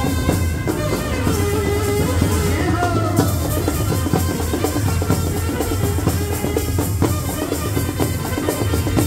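Indian brass band playing a Bollywood film song: trumpets and a vocalist carrying the melody over a steady drum-kit beat, amplified through horn loudspeakers.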